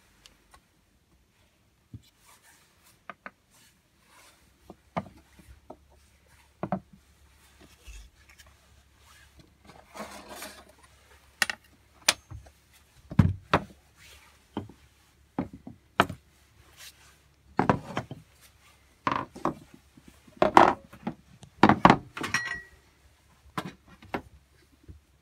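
Irregular wooden knocks, taps and rubbing, like things being handled and shifted on a wooden workbench. They are sparse at first and become more frequent and louder from about ten seconds in, over a faint low hum.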